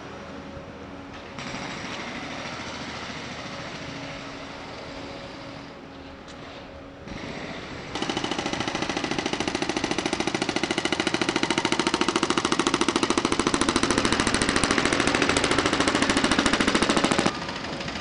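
Pavement breaker hammering rapidly and steadily on the road surface. It starts abruptly about halfway through, is the loudest sound, and cuts off suddenly near the end; before it there is lower, steady machinery noise.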